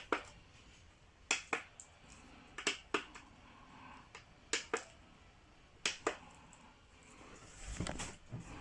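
Sharp clicks in close pairs, five pairs spaced a little over a second apart, from the parts or switches of a plastic model being worked by hand. A soft handling rustle follows near the end.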